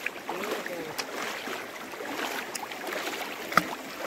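Swift river current rushing steadily around a wader's legs, with a few light splashes and knocks as a wet cast net is gathered in by hand. One sharp click about three and a half seconds in.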